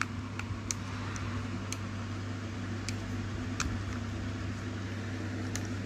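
Faint scattered plastic clicks and taps from fingers fitting and closing the battery cover of a toy airliner, over a steady background hum.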